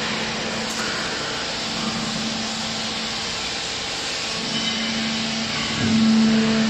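Hydraulic baler's pump motor running with a steady hum over machine noise, growing louder near the end.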